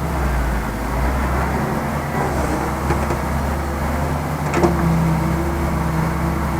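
Heavy construction machinery's diesel engine running steadily, with a sharp knock a little past halfway, after which the engine note steps up and holds.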